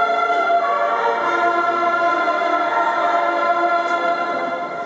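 Massed military band of brass and bugles playing slow, held chords.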